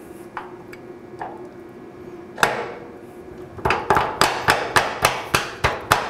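A single knock, then rapid taps on the aluminum gearbox housing, about four a second, seating its top half down onto the bottom half.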